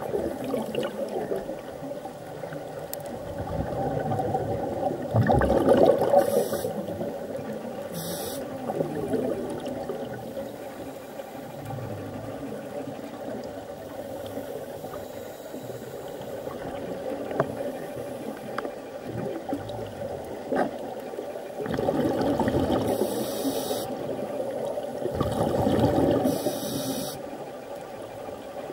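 Underwater ambience picked up by a submerged camera: a steady rush of water with louder swells, one about five seconds in and a longer one near the end.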